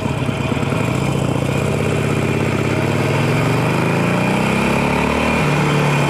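Harley-Davidson Sportster Roadster 1200's V-twin engine pulling up through the revs as the bike accelerates, with a sudden drop in pitch near the end like an upshift, then running steady. Wind noise runs underneath.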